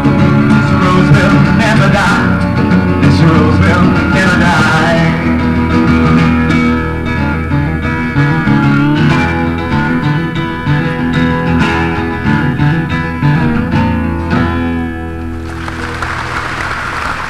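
Live acoustic guitar music playing out the closing bars of a song, ending about fifteen seconds in. An audience then starts applauding near the end.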